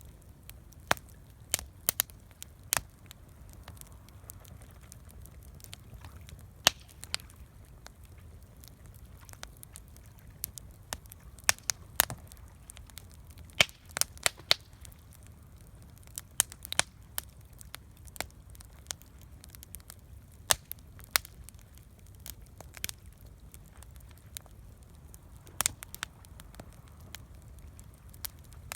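Wood campfire crackling, with sharp, irregular pops and snaps scattered through it over a faint low rumble.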